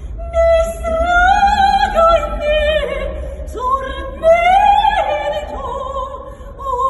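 A woman singing an operatic aria in a high soprano voice with wide vibrato, holding long notes and sliding up into them, with no accompaniment.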